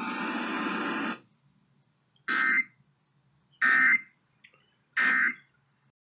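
Emergency Alert System end-of-message data bursts played through a clock radio's speaker: three short, loud, buzzing digital tone bursts about a second and a half apart, which close the required monthly test. A steady noise from the radio cuts off about a second before the first burst.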